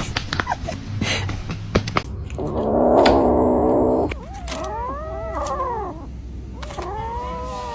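Domestic cat yowling: a few knocks at first, then a long, loud, steady yowl about two and a half seconds in, followed by drawn-out meows that rise and fall in pitch.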